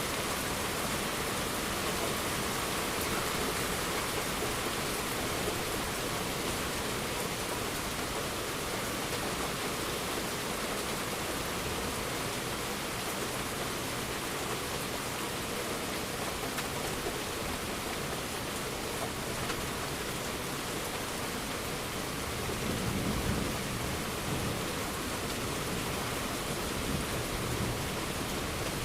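Steady heavy rain falling on a surface, with a low rumble of distant thunder swelling up about two-thirds of the way through.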